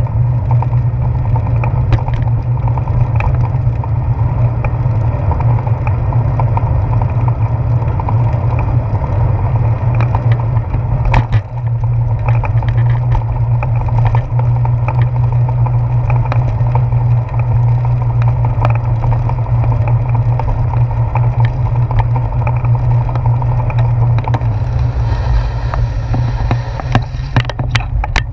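Wind and riding rumble on a bicycle's handlebar-mounted GoPro: a steady low rush from wind and road vibration, with tyre noise on wet pavement. Scattered sharp clicks and knocks come from bumps in the road, and the hiss grows harsher near the end.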